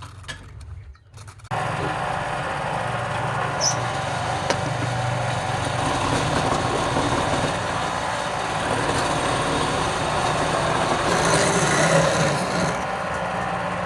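Wood lathe running with a steady low hum and rushing noise, starting abruptly about a second and a half in after a few light clinks; the sound brightens briefly near the end.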